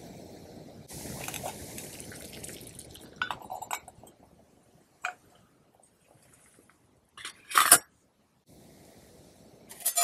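A steady low rumble for the first few seconds, then a few sharp metallic clinks and taps of a metal pot and a steel folding stove being handled, the loudest about three-quarters of the way through.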